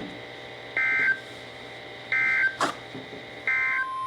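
Three short bursts of SAME digital data tones from NOAA Weather Radio, each about a third of a second long and spaced about a second and a half apart. They are the end-of-message code closing a severe thunderstorm warning. A sharp click falls between the second and third burst.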